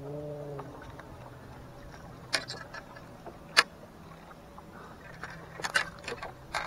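Handling noises from a freshly landed largemouth bass and its lure: a few sharp clicks and knocks, the loudest a little past halfway, then a short cluster of clicks near the end.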